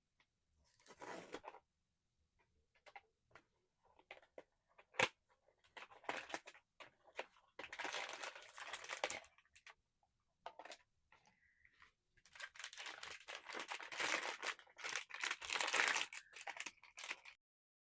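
Blind-box packaging being torn open and crinkled by hand, in irregular rustling bursts with a sharp click about five seconds in and longer stretches of tearing and crinkling near the middle and end.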